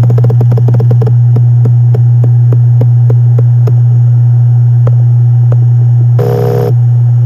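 Western Digital Ultrastar HC520 helium-filled hard drive running: a steady spindle hum under head-seek clicks, a quick flurry of clicks at the start, then scattered ticks, and a short buzzing burst about six seconds in.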